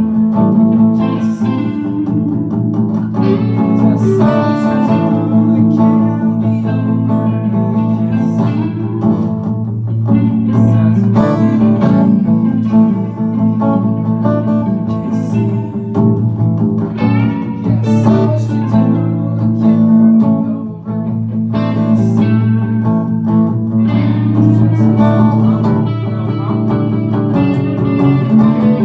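Stratocaster-style electric guitar played, a run of picked single notes and chords in a bluesy style, over a steady low note held underneath.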